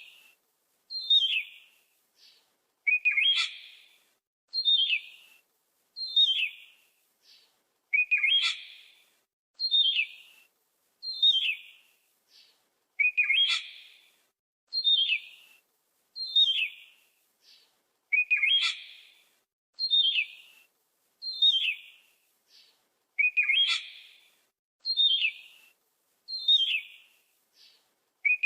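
A bird calling over and over: short falling chirps about every second and a half, with a louder, fuller call every third or fourth note, in a very regular repeating sequence.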